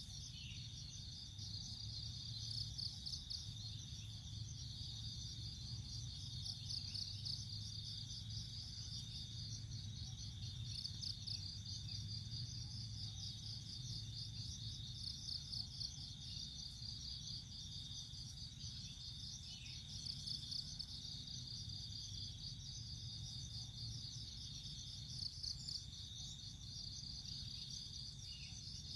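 Insects chirping in a dense, fast, high-pitched trill that runs on without a break, with a faint low hum underneath.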